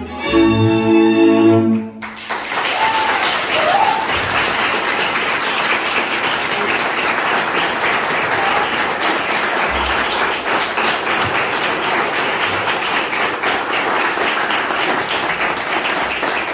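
Folk string band of fiddles and double bass plays the final notes of a tune, stopping about two seconds in. The audience then applauds steadily.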